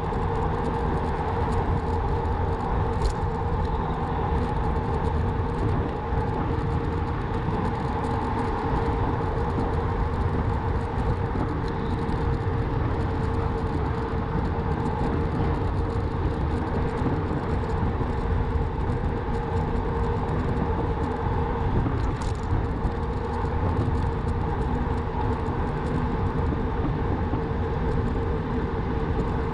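Riding noise from a Rawbike electric bike on the move: wind on the microphone and tyre rumble, with a steady hum. There are a couple of brief clicks, about three seconds in and again near the end.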